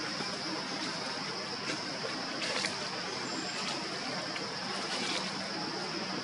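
Steady high-pitched insect drone over a constant hiss, with a few faint clicks about two and a half and five seconds in.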